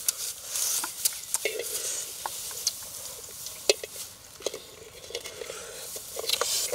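Dry straw rustling and crackling as hands dig through a straw nest and lift eggs out, with scattered sharp clicks and snaps.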